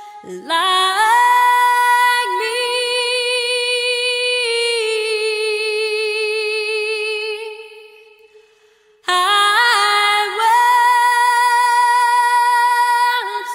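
A woman's voice singing slow, long held notes with vibrato, with no instrument heard alongside. It fades out past the middle and comes back in about a second and a half later.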